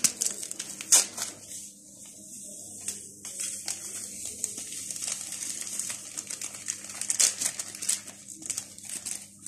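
Vanilla sugar sachets crinkling and being tapped as the sugar is shaken out over egg yolks in a bowl: an uneven run of small crackles and ticks.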